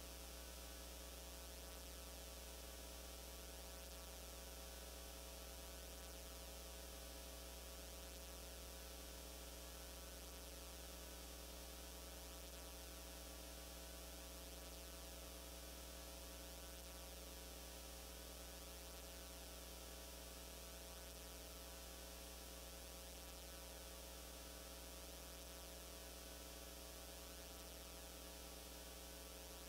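Faint, steady electrical hum: a low drone with several steady higher tones above it, unchanging, with no drum strokes or other events.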